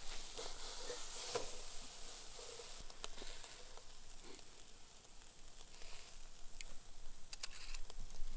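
Rack of spare ribs sizzling on a charcoal grill: a steady hiss with scattered sharp crackles.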